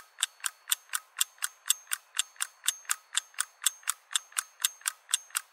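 Rapid, perfectly even mechanical ticking, about four ticks a second, like a fast clock.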